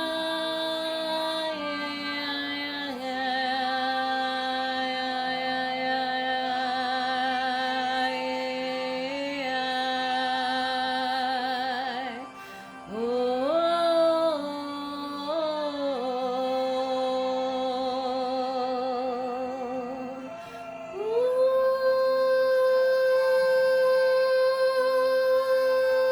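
Wordless spontaneous worship singing ('singing in the Spirit'): one voice holds long notes with vibrato and slides between pitches, pausing briefly about halfway through and again near the three-quarter mark.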